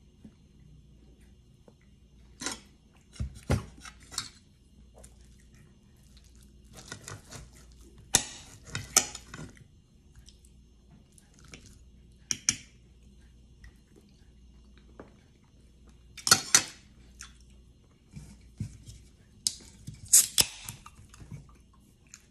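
Knife and fork scraping and clinking against a plate while cutting a steak, in short scattered bursts with quiet gaps between.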